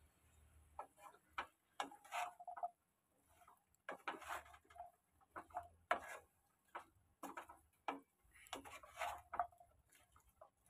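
Wooden spatula scraping and tapping against a nonstick pan as chunks of pumpkin and ridge gourd are stirred: quiet, irregular scrapes and knocks.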